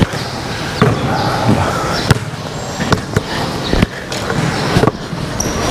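A basketball bouncing on a rubberized court: a handful of sharp thuds at uneven intervals.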